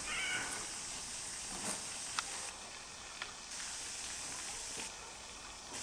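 Outdoor ambience: a steady high-pitched hiss, with a few faint sharp knocks about two and three seconds in.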